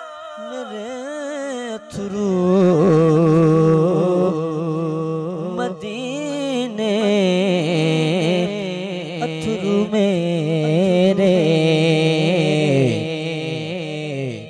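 A man sings a naat into a microphone, a long wavering melismatic line with no words clearly pronounced. From about two seconds in it rides over a steady low drone, and it grows louder there.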